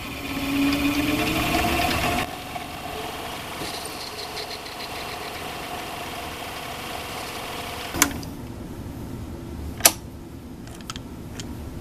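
Metal lathe running while taking a light cut on an aluminum part, loudest in the first two seconds with a rising hum as it gets going. A sharp click about eight seconds in, after which the running is quieter, and another sharp click about two seconds later as the chuck comes to rest.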